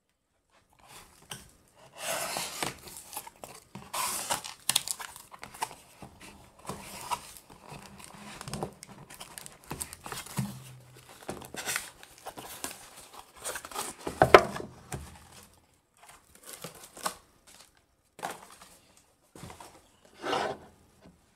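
Cardboard shipping box being opened by hand: tape tearing and cardboard flaps rustling and crinkling in irregular fits and starts, with one sharp knock about two-thirds of the way through. Near the end, sparser handling sounds as a smaller box is lifted out and set on the table.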